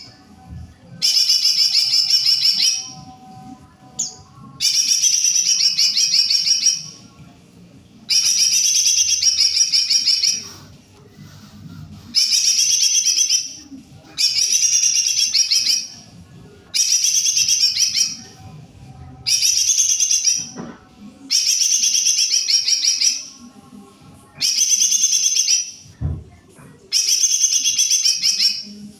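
Cucak ijo mini (lesser green leafbird) singing in full voice: loud, rapid, high warbling phrases about two seconds long, repeated about ten times with short pauses between them.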